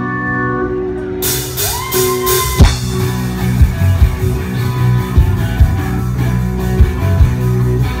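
Live rock band playing with electric guitar and drums. Held chords ring until about a second in, when cymbals and drums come in and a note slides up in pitch, and then the band plays on over a steady kick-drum beat.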